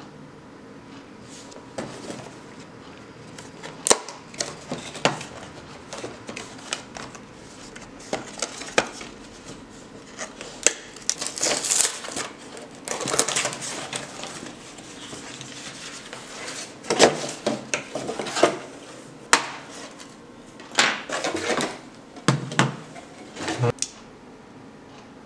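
Cardboard toy box with a clear plastic window being handled and opened: scattered clicks and taps, with several bursts of crinkling and scraping as the packaging is pulled apart.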